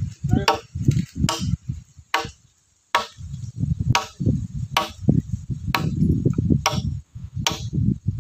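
A hand tool striking repeatedly in a steady rhythm, about once a second, each blow carrying a short ringing tone, with duller low thuds and scraping between the blows and a brief pause about two and a half seconds in.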